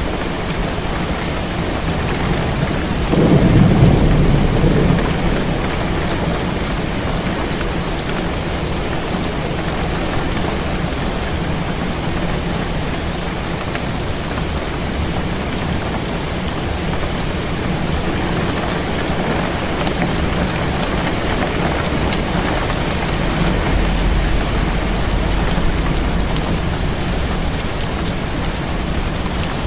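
Heavy rain falling steadily on a window, with a low rumble of thunder swelling about three seconds in and fading over the next few seconds.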